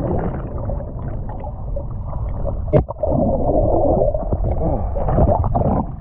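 Muffled, bubbling churn of water heard underwater, as a swimmer moves through a lake, with one sharp knock about three seconds in.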